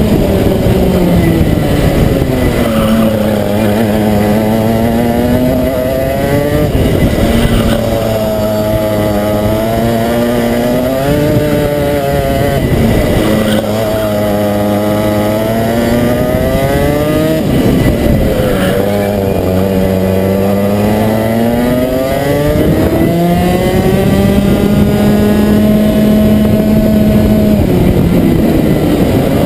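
Rotax Max 125 cc two-stroke kart engine heard onboard at racing speed, its pitch dropping off under braking into each corner and climbing back up as it is held flat out along the straights, about half a dozen times.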